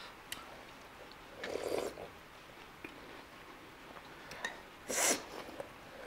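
A person eating spicy momos: faint mouth clicks of chewing, with two short noisy breaths, one about one and a half seconds in and a louder, sharper one at about five seconds.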